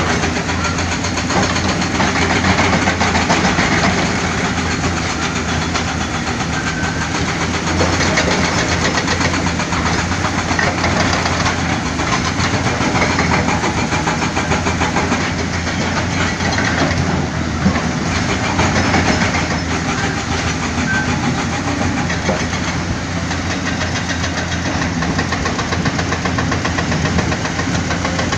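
Heavy diesel engine of earthmoving machinery running steadily under work, with a dense mechanical clatter over a low, even engine note.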